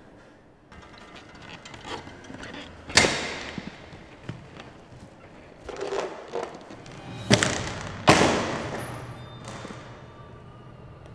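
A few loud thuds, each with a long echoing tail: one about three seconds in and two close together later on, with smaller knocks between them.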